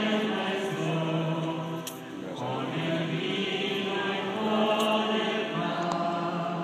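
Church congregation singing a Mass response together in unison, many voices holding long, slow notes that echo in a large church.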